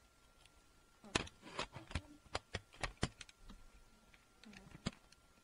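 A quick run of about a dozen sharp clicks and knocks, starting about a second in and lasting about two seconds, with one more near the end: handling noise of a small video camera being fixed on its tripod and set in place.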